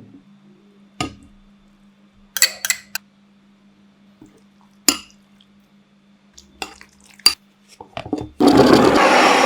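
Kitchen food prep: dishes and utensils clink and knock a few separate times, then a loud rushing noise lasts about a second and a half near the end, over a faint steady low hum.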